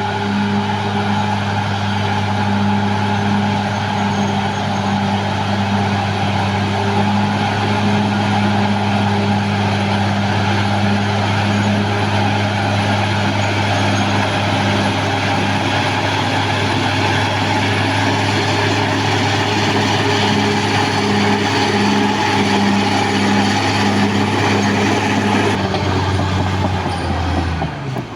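Caterpillar D6R XL bulldozer's diesel engine running steadily at working speed, a loud even drone; just before the end its pitch steps down and the sound briefly dips.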